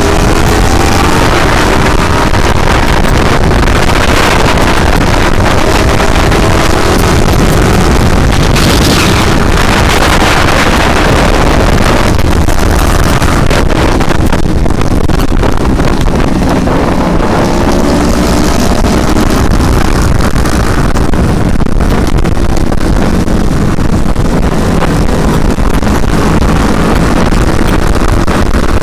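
Motorcycle engine running under way, its pitch rising and falling with the throttle, under heavy wind buffeting on the microphone.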